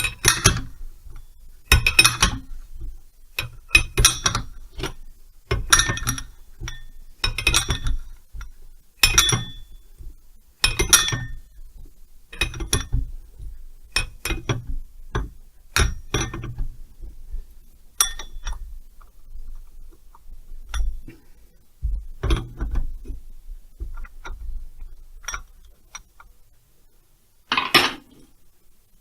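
Steel spanner clinking against metal while working a nut on a Stihl 070 chainsaw: sharp knocks about every one and a half to two seconds, louder in the first half, then fewer and fainter.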